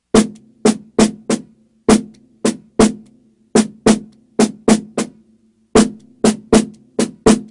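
Drumsticks playing the Swiss Army triplet rudiment (flam, tap, tap) on a resonant surface: about seventeen sharp strokes in groups, each leaving a ringing low tone that carries between the hits.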